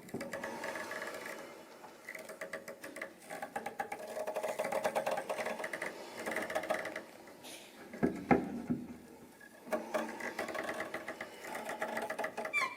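Double basses played with extended techniques: rapid, rattling bow strokes and scrapes over pitched tones, with a few sharper knocks on the instruments, used to imitate sound effects rather than normal bowed notes.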